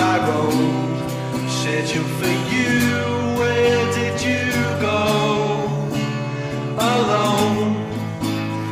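A band song: a male lead vocal sings over electric guitars and bass guitar.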